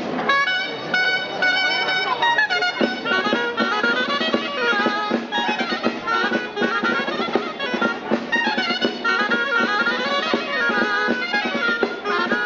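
Traditional folk dance music for a jota: a reedy wind instrument plays a quick, ornamented melody, starting abruptly at the outset.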